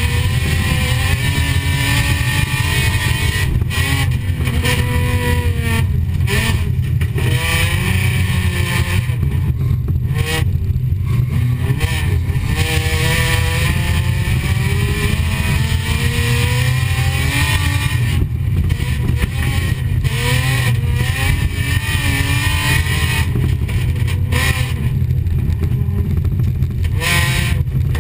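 Folkrace car's engine heard from inside the cabin while racing on dirt, repeatedly revving up and dropping back as the driver accelerates and lifts, over a heavy constant rumble.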